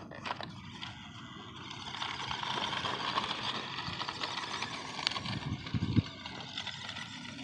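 Small RC pickup truck crawling over loose gravel: tyres crunching and rattling on the stones over the electric drive's whine, with the walker's footsteps crunching gravel and a few low thumps about five to six seconds in.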